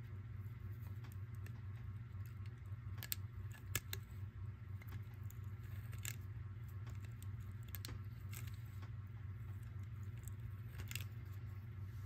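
A handful of faint metallic clicks as a key is turned in a cutaway lever padlock, moving its brass levers and sliding plate, over a steady low hum.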